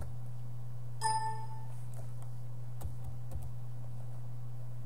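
A short computer alert ding about a second in, the terminal bell that the vi editor rings when it refuses a keystroke. It sounds over a steady low hum, with a few faint keyboard clicks after it.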